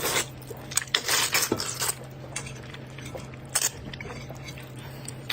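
Utensils clinking and scraping in a bowl as noodles are stirred and mixed, in a few short bursts.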